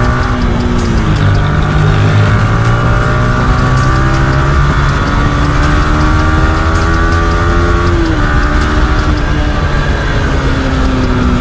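Freshly tuned-up Yamaha R15 V3's single-cylinder engine pulling hard under acceleration, with wind rushing past. The engine note dips about a second in, then climbs steadily, drops with an upshift into fourth gear near the end, and starts climbing again.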